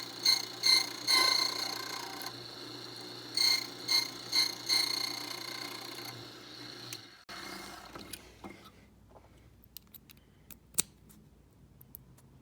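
Key-cutting machine running with a steady high whine, the cutter biting into a key blank in a series of short louder bursts as each cut is made. The machine stops suddenly about seven seconds in, and a few light clicks follow.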